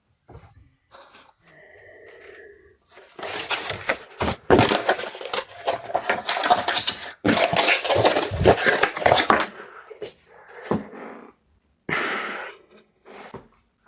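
Packing materials handled by hand: several seconds of dense crinkling and rustling of packaging, full of small clicks and knocks. A short hiss follows near the end.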